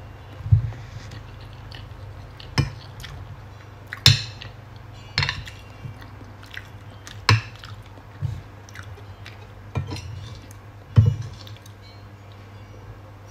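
Metal spoon clinking and scraping against a ceramic plate as rice is scooped, a sharp clink every second or two, with chewing in between. A steady low hum runs underneath.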